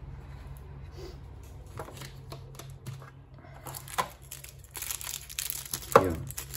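Clear plastic packaging bag crinkling as it is handled, with a few light clicks of plastic parts early on. About six seconds in, a sharp clack as the plastic doorbell unit is set down.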